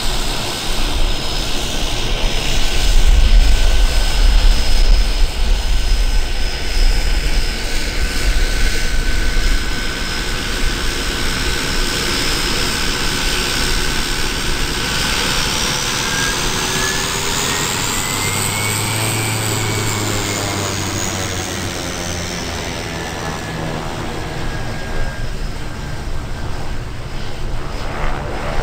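Lancair Evolution's Pratt & Whitney PT6A turboprop taxiing: a steady high turbine whine over the propeller's drone. About two-thirds of the way through, the whine glides up in pitch and back down as the aircraft turns past and heads away.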